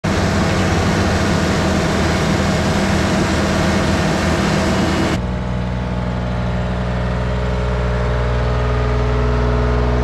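Diesel engines of a LeeBoy 8500 asphalt paver and the dump truck feeding its hopper, running loud and steady. About five seconds in the sound cuts abruptly to the steadier engine note of a small ride-on tandem asphalt roller driving.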